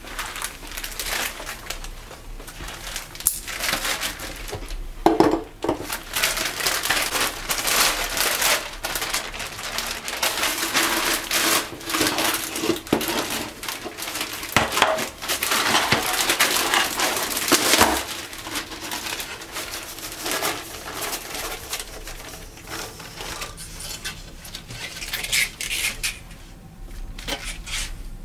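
A plastic carrier bag rustling and crinkling as it is pulled over and handled around a stainless-steel Grainfather malt pipe to empty out the spent grain, with a few metallic knocks and clanks from the pipe.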